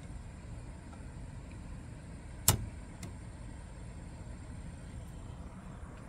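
A sharp click from the Hermes Baby typewriter's mechanism as it is handled, about two and a half seconds in, followed half a second later by a fainter click, over a steady low background rumble.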